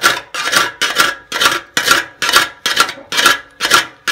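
Hand scraping at the rusted sheet-steel front panel of a Ferguson TEF20 bonnet: a rhythmic rasping of metal on corroded metal, about two strokes a second. The rust has eaten right through the panel.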